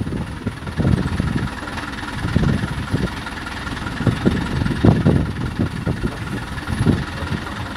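Pick-and-carry mobile crane's diesel engine idling steadily while holding a load, with uneven low rumbling swells over the hum.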